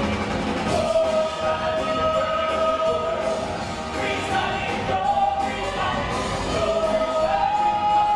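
Stage musical cast singing as an ensemble over a live band, holding long sustained notes.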